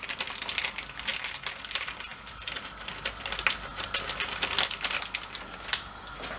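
Melted butter sizzling and crackling in a stainless steel frying pan with nuts frying in it, a dense run of irregular pops that thins out near the end.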